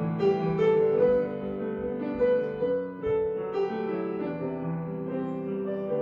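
Background piano music, several notes held together in slow chords.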